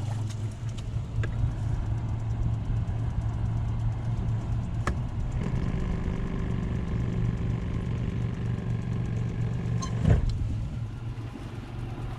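Boat motor running steadily with a low hum, a second, higher steady tone joining about halfway through. A single thump about ten seconds in.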